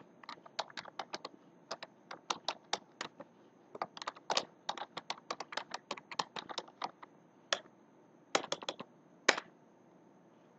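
Typing on a computer keyboard: quick, irregular keystrokes in runs, with a short pause a little after halfway and the typing stopping about a second before the end.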